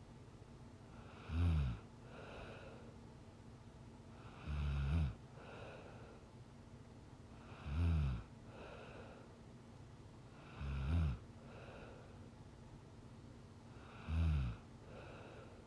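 A sleeping woman snoring: five loud, low snores about three seconds apart, each followed by a softer breath.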